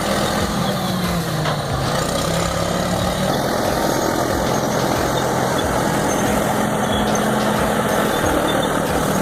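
Large diesel crawler bulldozer engine running steadily under load, its pitch dipping briefly about a second in and then holding.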